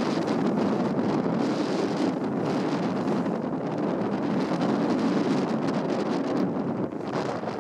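Wind buffeting the microphone at a sailboat's bow, over the steady rush of water along the hull as the boat moves through open sea.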